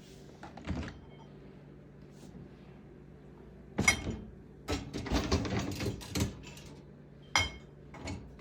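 Kitchen handling clatter: several sharp clacks and clinks with a brief ringing tone, the two loudest about four and seven seconds in, with a run of rattling knocks between them, as a small countertop oven and its pan or dishes are handled.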